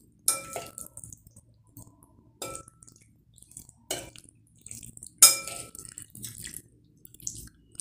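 Two steel spoons clinking against a ceramic plate while tossing pieces of marinated chicken. The sharp clinks come irregularly, every second or two, some with a brief ring, and the loudest comes about five seconds in.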